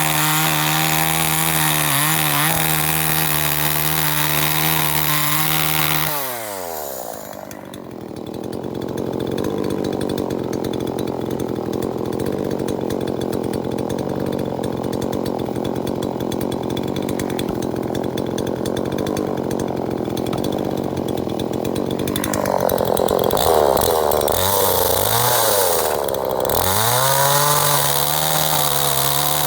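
Gasoline 39.6 cc two-stroke chainsaw engine running at steady high revs. About six seconds in, the revs fall away to a rough idle. From about 22 seconds it is revved up and down several times, then held steady at high speed again near the end.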